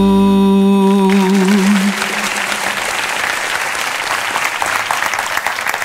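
A man's voice holds the song's final sung note over the backing music, wavering into a vibrato and ending about two seconds in. A studio audience's applause swells up as the note ends and carries on steadily.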